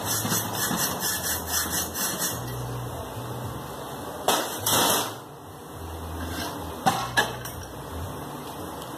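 Small metal parts and hand tools handled at a steel bench vise: a quick rhythmic scratching at about five strokes a second for the first two seconds, a loud metallic clatter about four to five seconds in, and two sharp clicks near seven seconds.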